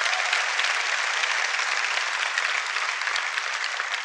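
Audience applause: many people clapping together, steady throughout.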